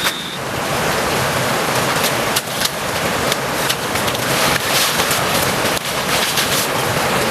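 Heavy rain pouring down as a steady, dense hiss, with many separate sharp drop hits standing out on top.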